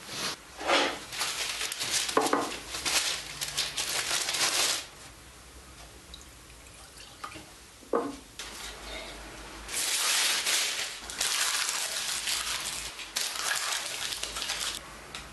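Household noises of getting up and making coffee: bedclothes rustling, a ceramic mug knocked down on a wooden counter about eight seconds in, then stretches of liquid running and splashing.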